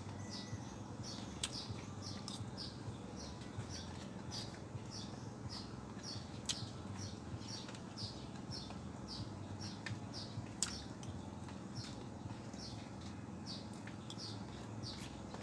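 Short high chirps repeating evenly, about two a second, from a small animal, over a low steady hum. A few sharp clicks of a spoon during eating stand out now and then.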